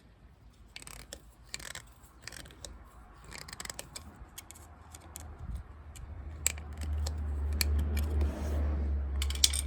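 Scattered small clicks and scrapes of hand tools and fingers working on fuel hoses and clamps. A low rumble builds up in the second half and is the loudest sound.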